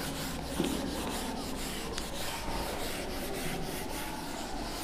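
A whiteboard eraser wiped back and forth across a whiteboard in quick rubbing strokes, about three to four a second.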